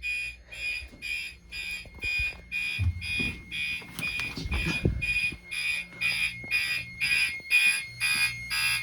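Fire alarm horn sounding in a fast, even pulse of about two to three beeps a second, set off by a heat detector being magnet-tested into alarm. It cuts off suddenly at the end.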